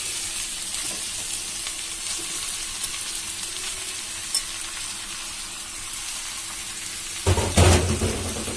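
Raw beef pieces sizzling in hot mustard oil with softened onions and ginger-garlic paste in a wok: a steady frying hiss. About seven seconds in, a louder clatter breaks in for a second or so.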